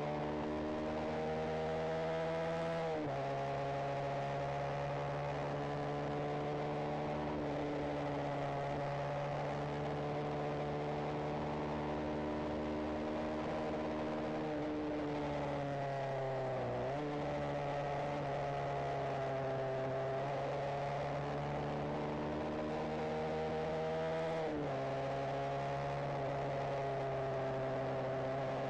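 Benelli TNT 125's single-cylinder four-stroke engine and exhaust running under way. It pulls with a steady, even note, which drops sharply three times: about 3, 17 and 24 seconds in.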